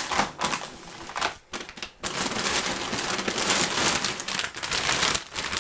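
Plastic packets of frozen chicken and a carrier bag crinkling and rustling as a hand rummages through the bag, in scattered crackles at first and then continuously from about two seconds in.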